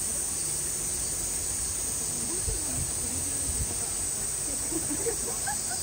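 Outdoor ambience: a steady high-pitched hiss with a faint murmur of distant voices and a couple of soft low bumps midway.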